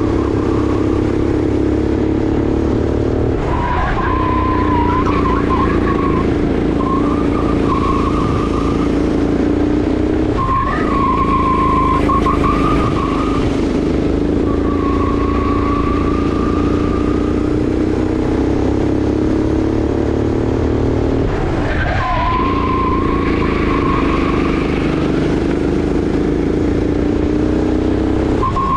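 Sodi RX8 rental kart's 390 cc single-cylinder four-stroke engine running hard, its revs dipping briefly about three seconds in, ten seconds in and twenty-two seconds in. Tyres squeal in stretches of a few seconds through the corners.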